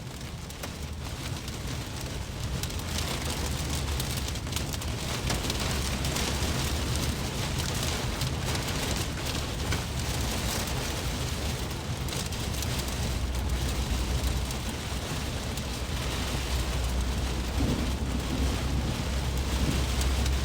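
Hail and rain pelting the roof and windshield of a moving car, heard from inside the cabin as a dense, steady patter of small impacts over the low rumble of the road.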